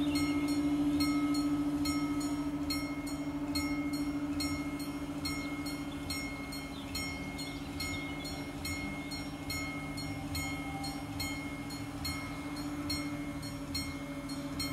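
Italian level-crossing warning bell ringing in a fast, even run of electronic dings while the crossing barrier lowers, over a steady low hum.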